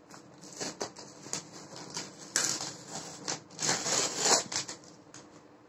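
Packing tape and a plastic shipping-label pouch being peeled and torn off a cardboard parcel by hand: scratchy rubbing and rustling, with two louder rips about two and a half and four seconds in.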